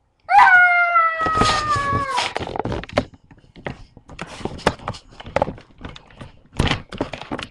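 A cat gives one long meow that slides down in pitch, lasting about two seconds, followed by a run of knocks, taps and rustling.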